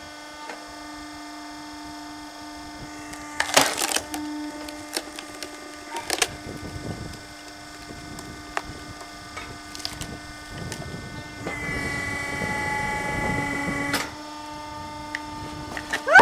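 Log splitter motor humming steadily while wood cracks and splits under the ram, with sharp loud cracks a few seconds in and again about six seconds in. Later a higher strained whine rises over the hum for a couple of seconds as the splitter works under load.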